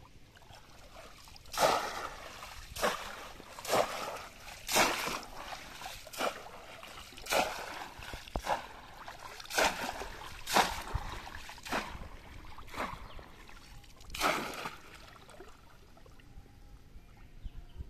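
River water splashing and pouring as a conical bamboo polo fish trap is repeatedly plunged into the water and lifted out, about a dozen splashes roughly a second apart that stop near the end.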